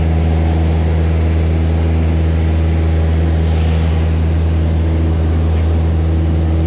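Steady, deep engine and propeller drone of a single-engine high-wing light airplane in flight, heard from inside the cabin.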